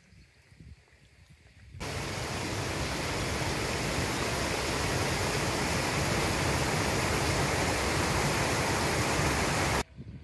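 Steady rush of a mountain stream, an even hiss that cuts in suddenly about two seconds in and cuts off just before the end.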